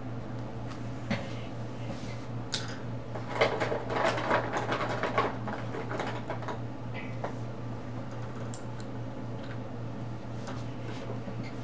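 Coloring tools being handled and worked on paper: scattered light clicks, with a burst of scratchy clicking and rustling about three to five seconds in, over a steady low hum.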